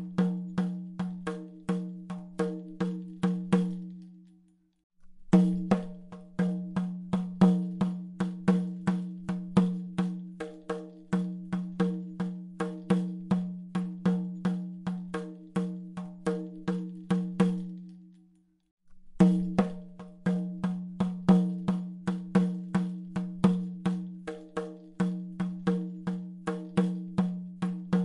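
Background music: a looping track of quick, evenly spaced percussive notes over a held low note. It stops briefly twice and starts again.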